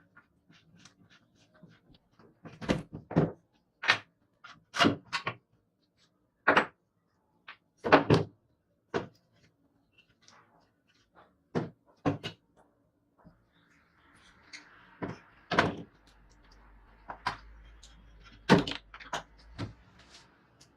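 A series of about fifteen sharp knocks and taps at irregular intervals, some loud, from hard parts being struck or handled during work on a scooter.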